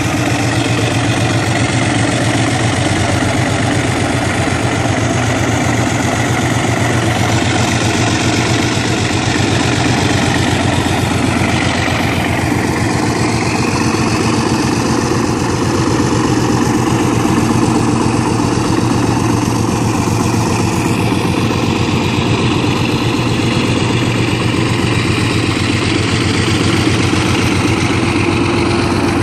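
Two Alco diesel locomotives working under load, their engines making a steady, loud rumble as they approach and pass directly beneath the listener.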